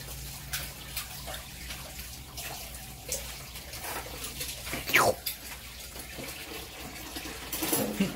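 Running water in the background, steady throughout, with scattered light clicks. About five seconds in, a brief sharp sound slides steeply down in pitch and is the loudest moment.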